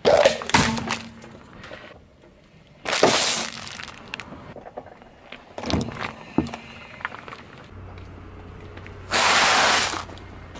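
A car tyre rolling over and crushing a series of small objects, one after another: four loud cracking, crunching bursts about three seconds apart, beginning with a plastic cup breaking under the tyre. The last burst, near the end, is a longer crackle of dry spaghetti snapping.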